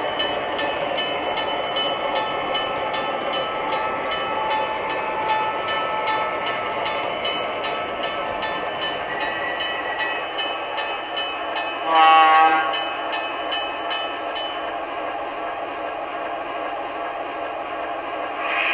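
O-scale model trains running on a layout: rolling wheels and steady electronic diesel engine sound effects. About twelve seconds in comes one short, loud blast of a diesel horn from a model locomotive's sound system, and a second horn note starts right at the end.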